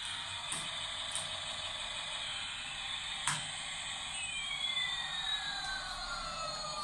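Battery-powered light-up toy airplane playing its electronic engine sound effect: a steady hissing drone, with a sharp click a little past three seconds. About four seconds in, a clear tone splits into one glide rising and one falling.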